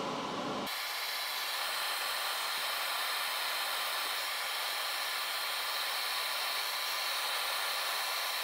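Benchtop solder fume extractor fan running: a steady airy hiss, its low rumble dropping away under a second in.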